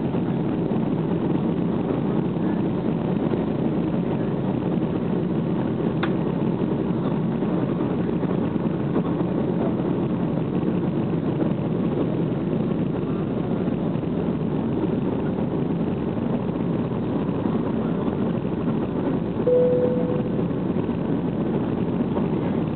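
Steady engine and airflow noise heard inside an airliner cabin during takeoff. A short single tone sounds about twenty seconds in.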